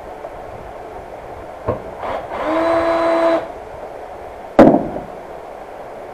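Cordless drill-driver runs for about a second with a steady whine, driving a screw into the holster shell. About a second later comes one loud, sharp knock as the drill is set down on the wooden workbench.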